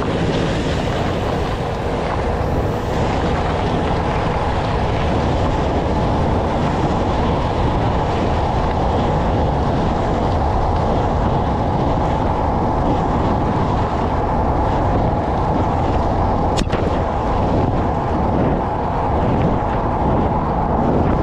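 Steady tyre and road rumble of a car driving over rough pavement, heard close to the wheel with wind buffeting the microphone. A single sharp knock about sixteen seconds in.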